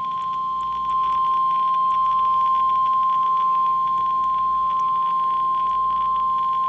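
NOAA Weather Radio warning alarm tone: one steady high-pitched tone near 1050 Hz over a faint hiss of radio static, a little louder from about a second in. It signals that a warning message follows.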